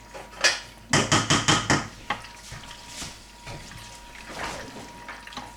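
A cooking utensil knocking and clattering against a saucepan while cheese pasta sauce is being stirred. There is one knock, then a quick run of about seven clatters about a second in, followed by softer scraping.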